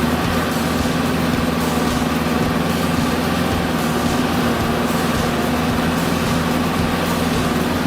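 Heavy vehicle engine running at a steady speed.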